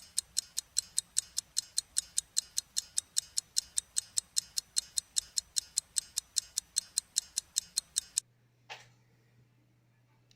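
Mechanical wristwatch movement of a tiny Soviet Chaika 1200 ticking close to the microphone, fast and perfectly even, showing the balance is running. The ticking stops abruptly about eight seconds in, followed by a single short click.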